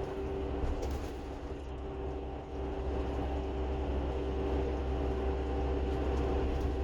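Steady low rumble of a moving vehicle, with a few steady hum tones on top; it cuts off suddenly near the end.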